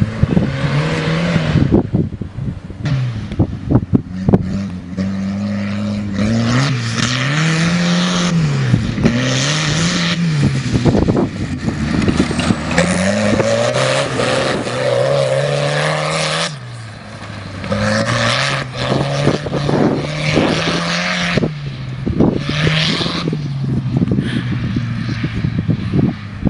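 Turbocharged tractor engine revving hard, its pitch climbing and dropping again over and over as the tractor is driven flat out. The rear tyres spin and tear through the turf, adding a rough scraping noise and knocks. The engine eases off briefly about two-thirds of the way through.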